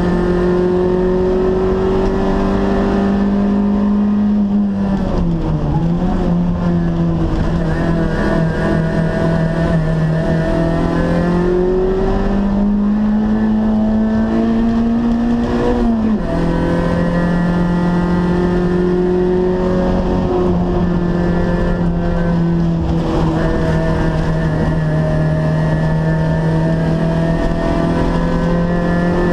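Toyota Corolla AE92 race car's engine, from its sub-1600 cc class, running hard at high revs on a hillclimb run, heard from inside the stripped, roll-caged cabin. Its pitch holds or climbs under load and drops sharply at gear changes, several times.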